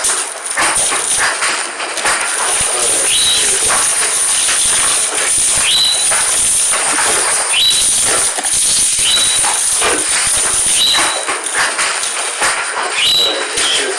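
Plastic bubble-wrap packaging crinkling and rustling as it is cut with scissors and pulled off a disc case. A high call that rises and then holds repeats about every two seconds, from an animal.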